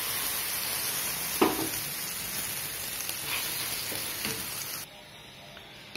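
Wet ground radish paste sizzling hard in hot oil in a kadai just after it is poured in, with a spatula knocking against the pan once about a second and a half in. The sizzle drops off sharply about five seconds in.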